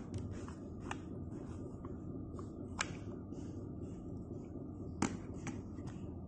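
A few light clicks and taps of a hard plastic desk-mounted wireless charger being handled and pressed into its hole in a wooden desk, over a steady room hiss and hum. The sharpest click comes about five seconds in.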